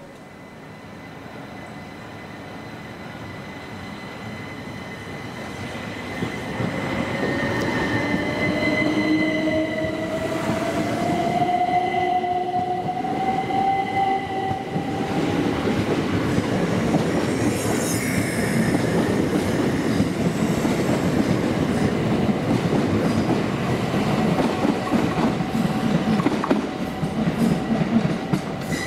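Two coupled Southeastern Class 375 Electrostar electric multiple units coming into the station, getting steadily louder. A high steady squeal and a whine rising in pitch run over the rumble and clatter of wheels on the rails.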